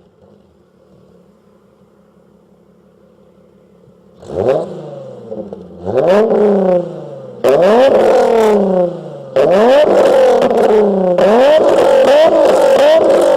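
VW Golf III VR6 engine with a Magnaflow exhaust idling steadily for about four seconds, then free-revved in a series of blips. Each blip rises and falls in pitch, and the later ones are longer and louder.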